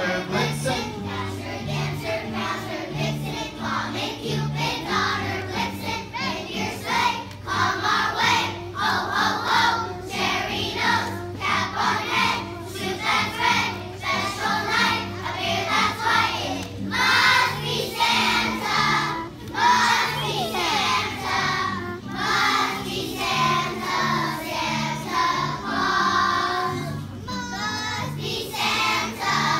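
Choir of young children singing together with instrumental accompaniment, the low notes of the accompaniment changing in steady steps under the voices.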